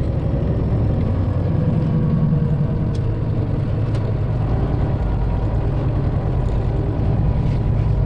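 Detroit Diesel 12.7 engine of a Freightliner Classic XL semi truck running steadily under way, heard from inside the cab as a steady low drone with road noise.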